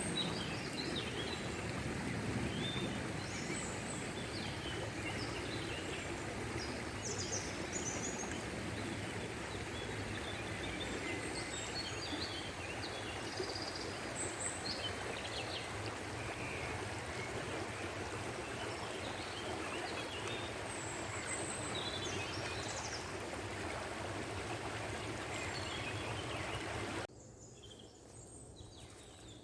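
Running stream water with small birds chirping and calling over it. Near the end the water sound cuts off abruptly, leaving only faint bird calls.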